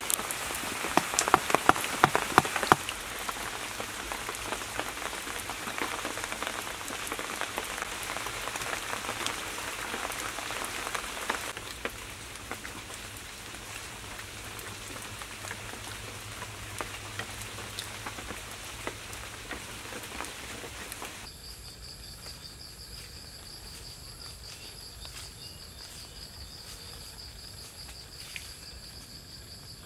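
A dense crackling patter with loud sharp clicks over the first few seconds. About two-thirds of the way through it cuts to steady, high-pitched insect chirping.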